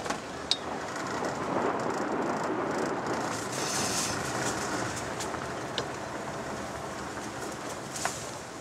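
Car driving slowly over a narrow, rough concrete road: steady tyre and engine noise, a little louder in the first few seconds, with a few sharp ticks.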